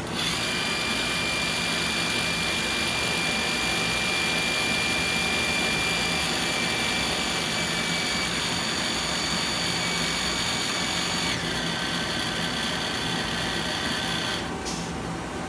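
A small motor running steadily with a high whine. Its pitch drops a step about eleven seconds in, and it stops shortly before the end.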